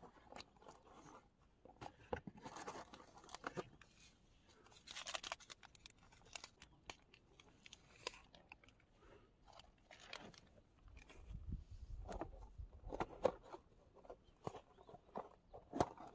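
Irregular small clicks, scrapes and crunchy rustles of objects being handled at close range, with a brief low rumble about two-thirds of the way through.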